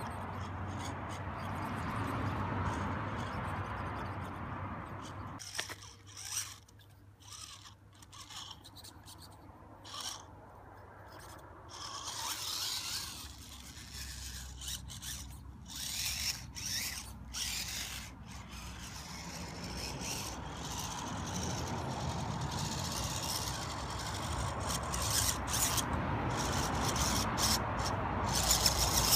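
Small RC rock crawler working over granite: its rubber tyres scraping and rubbing on the rock, with many short clicks and scrapes. A steady background rush is louder at the start and again toward the end.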